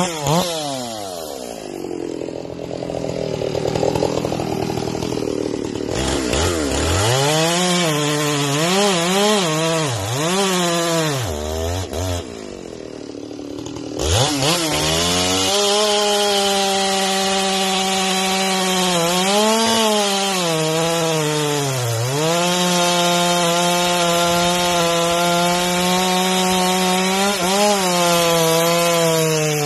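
Ported Stihl MS461 two-stroke chainsaw with a 36-inch bar and semi-chisel chain, cutting cypress. It drops off high revs at the start and runs lower for a few seconds, is revved up and down several times, then from about halfway runs at full throttle in the cut, dipping briefly in pitch a few times.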